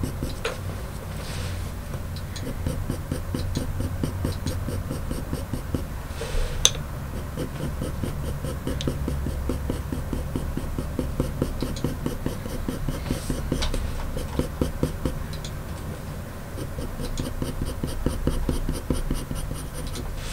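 Coloured pencil scratching on paper in quick, short, repeated strokes as fur lines are drawn, with a sharper tick about six and a half seconds in.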